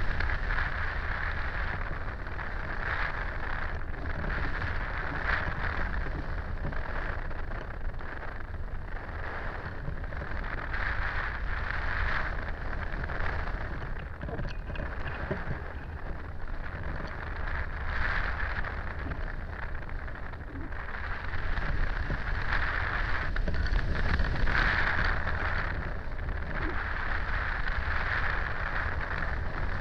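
Wind rushing over the microphone of a camera mounted on a hang glider in flight: a steady hiss with low buffeting rumble that rises and falls, a little louder about three-quarters of the way through.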